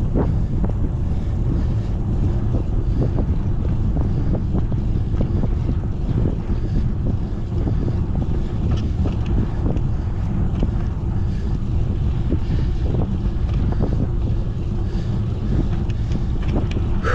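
Wind buffeting the microphone of a camera riding along on a moving bicycle: a steady, heavy low rumble with a few faint clicks scattered through it.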